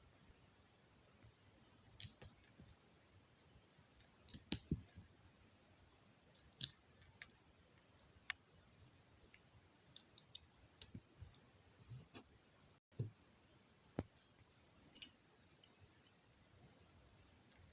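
Plastic LEGO bricks being handled and snapped together, in scattered irregular clicks. The loudest are a small cluster about four to five seconds in and a sharp pair near fifteen seconds.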